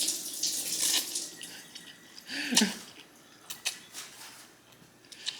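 Kitchen tap running, the water hiss dying away over the first second or two. A few sharp clicks follow, the loudest about two and a half seconds in.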